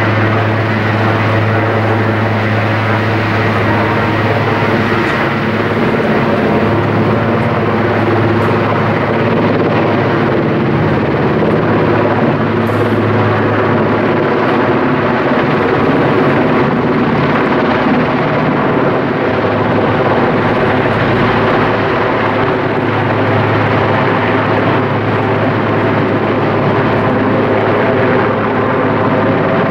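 Eurocopter Puma helicopter holding close overhead while carrying a heavy slung load, its rotors and turbine engines making a loud, steady drone over a constant low hum.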